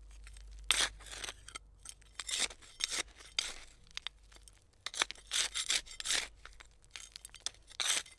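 Hand trowel digging: a series of short scraping strokes, each a gritty rasp, coming at irregular intervals about once a second and bunched closer together a little past the middle.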